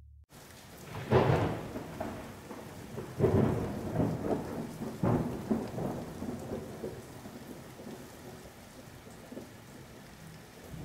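Thunderstorm sound effect: a steady hiss of rain with loud thunder cracks and rumbles, the loudest about a second in and several more between three and five seconds in, then fading away toward the end.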